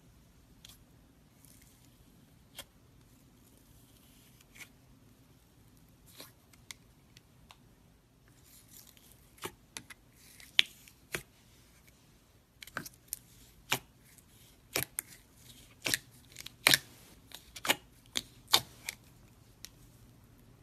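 Clear slime in a plastic jar being pressed and stirred with a finger to work in orange powder, making sharp clicks and pops. They are sparse at first and come thick and loud from about eight seconds in.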